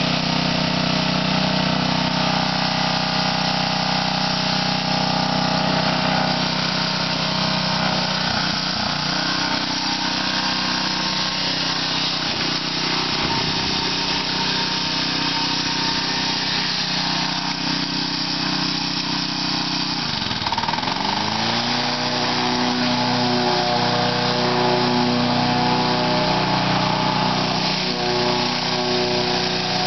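Walk-behind petrol lawn mower engine running steadily; its pitch sags briefly about eight seconds in and drops sharply about twenty seconds in, then settles back to a steady run.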